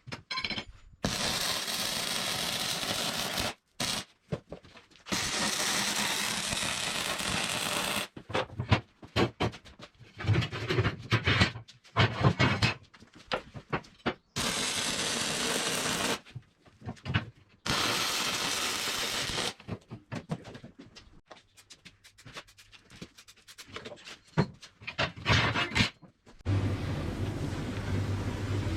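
Metal workshop tool noise: several stretches of a steady, hissing power tool, such as a grinder, each starting and stopping abruptly, with clusters of sharp knocks between them and a low steady hum near the end.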